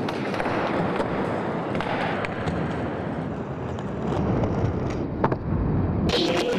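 Skateboard wheels rolling on a hard surface, with one sharp board clack about five seconds in.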